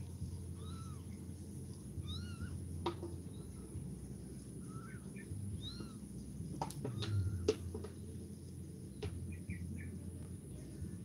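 A kitten mewing over and over, short high thin mews about once a second. A few sharp knocks come in the middle.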